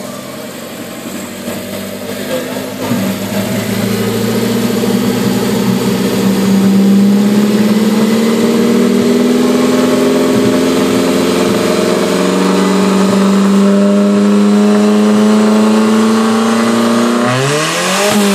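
Alfa Romeo 4C's 1750 TBI turbocharged four-cylinder engine heard at its exhaust tips. It runs at a fast idle, then revs rise slowly over a few seconds and are held fairly steady. Just before the end comes one quick, sharp blip of the throttle that rises and falls.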